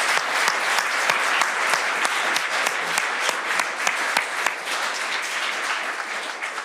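Audience applauding, many hands clapping together, easing off toward the end.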